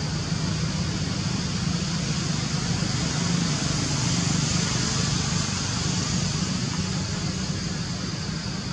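Steady outdoor background noise with no distinct event: a low rumble together with a high, even hiss.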